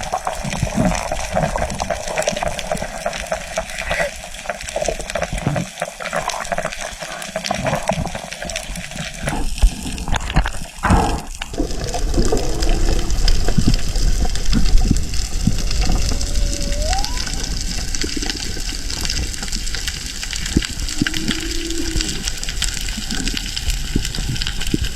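Continuous rushing, bubbling water noise picked up underwater, with a few knocks about ten seconds in, after which the water noise grows steadier.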